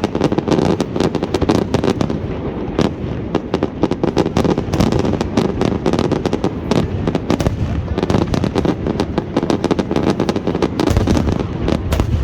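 Fireworks display: a loud, dense barrage of rapid bangs and crackles.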